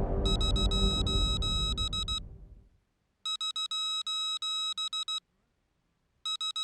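A song fades out over the first two and a half seconds. Then an electronic ringtone trills in bursts of about two seconds, with a gap of about a second between them.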